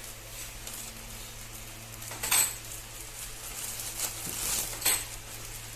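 Fan parts being unpacked by hand: rustling packaging and light clinks of the metal grille and blade, with a sharp clatter about two seconds in and another near the end, over a low steady hum.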